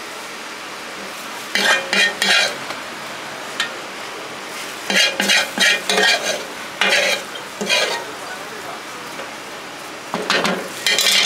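Tantuni meat with onion and tomato sizzling steadily in a hot pan, with a metal spatula clattering and scraping against the pan in quick bursts several times as the food is stirred and chopped.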